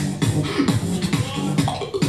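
Solo human beatboxing in a fast, steady groove: vocal kick drums with falling bass sweeps, snares and hissing hi-hats.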